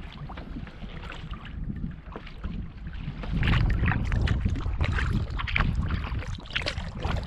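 Water splashing and lapping around a paddled sea kayak, with wind noise on the microphone; the wind noise grows louder about halfway through.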